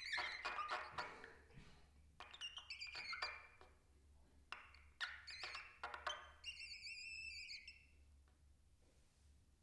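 Trumpet played with extended techniques: short, quiet bursts of hissing, squeaky sound, then near the end a longer wavering high squeal that drops away at its end.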